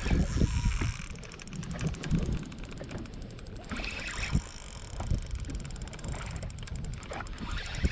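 Fishing reel being cranked while a large fish is played on light line: a fast run of fine mechanical ticks over low wind rumble on the microphone.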